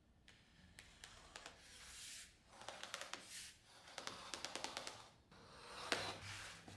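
A leather hide rustling and scraping as it is handled and shifted on a workbench, with a snap-off utility knife against it, and runs of quick small clicks midway.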